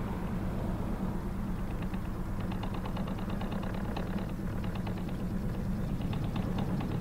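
An engine running steadily with a low hum and a fast repeating ticking.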